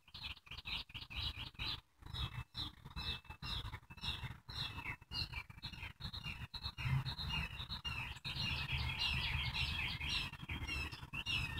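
Small birds chirping, many quick short notes one after another, getting busier toward the end, over a low background rumble.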